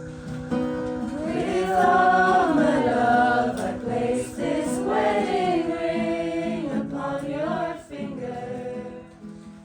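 Several people singing together in a group sing-along over sustained accompanying notes, live jam-session music.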